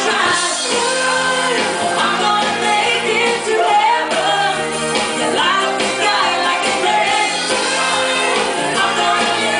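Live band playing a pop-rock song, with electric guitars, bass and keyboards under lead vocals sung into microphones.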